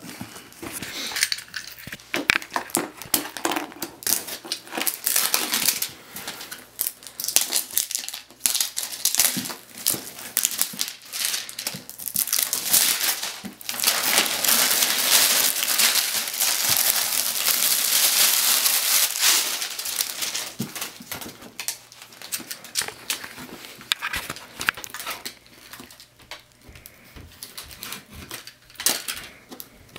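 Power supply box being opened and its packaging handled: rustling and crinkling of plastic and cardboard with scattered knocks and clicks, and a longer stretch of loud crinkling around the middle.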